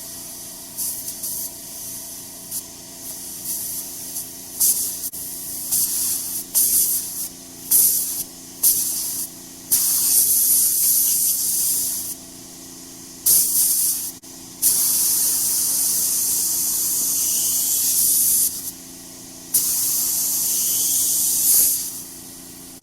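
Compressed air from a compressor's air line hissing into a motorcycle tire, first in many short bursts and then in longer blasts of a few seconds each, while inflating the tire to seat its bead on the rim.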